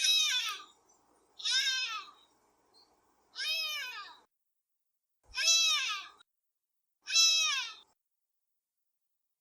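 Domestic cat meowing five times, one short meow every one and a half to two seconds, each rising then falling in pitch.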